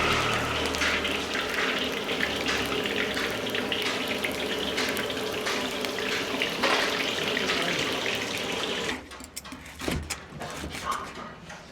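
A hot wok hissing steadily, with short metallic clinks and scrapes through it. The hiss cuts off about nine seconds in, leaving a few scattered knocks.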